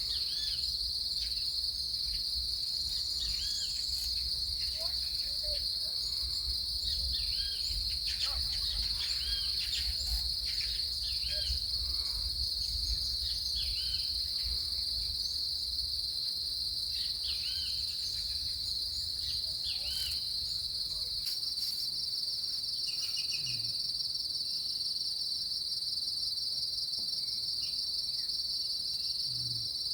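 A steady, high-pitched insect chorus of crickets, with faint short chirps scattered over it and a low rumble underneath that fades about two-thirds of the way through.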